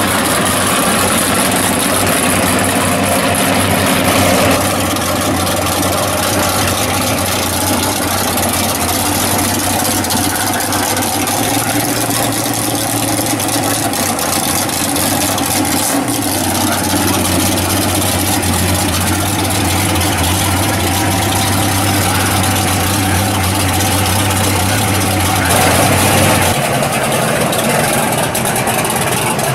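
Drag race cars idling and creeping forward one after another, a steady low engine drone that changes character a few times as one car follows another.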